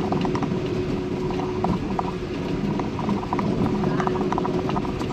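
Steady road and engine rumble inside a car cruising on the highway, with light irregular ticking over it.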